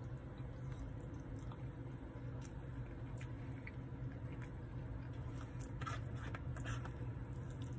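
A man chewing a mouthful of chili cheese fries, with a few short clicks from a plastic fork against the paper tray, over a steady low hum inside a car.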